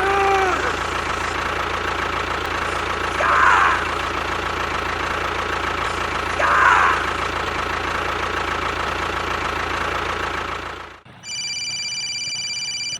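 A small motor running steadily with a rattling hum, with three brief high chirps about three seconds apart. About two seconds before the end it cuts off, and a different sound of steady electronic-sounding tones takes its place.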